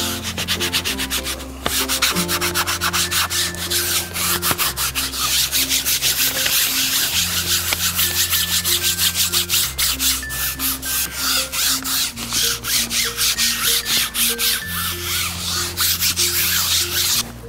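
Baren rubbed hard and fast over printing paper on an inked plate: a scratchy rubbing of several quick strokes a second, briefly pausing about two seconds in. It presses the paper onto the plate to pull the print and raise a plate mark around the corners.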